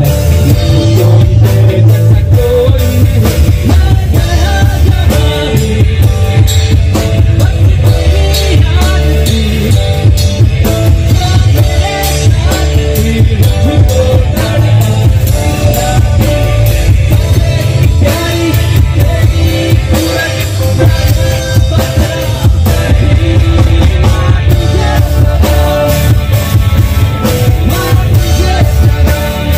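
Live band playing through a stage PA: a singer over electric guitar, keyboard and drum kit, with heavy bass and a steady drum beat.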